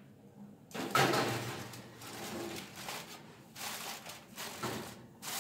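Oven door opened with a sudden clatter about a second in, then a foil-covered metal baking tray scraped and pushed onto the oven rack, with the aluminium foil crinkling under the hands.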